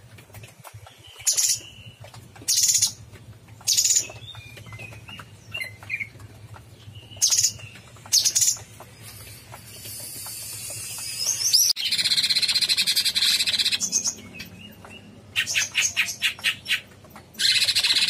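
Caged cucak cungkok (a leafbird) singing vigorously. It gives loud, short, high call notes a second or so apart, then one long unbroken run of song near the middle, and a fast string of notes toward the end.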